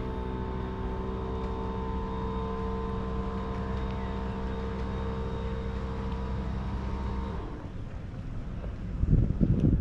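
A motor running steadily at a constant pitch, cutting off suddenly about seven seconds in. Near the end, a short rumbling gust of wind hits the microphone.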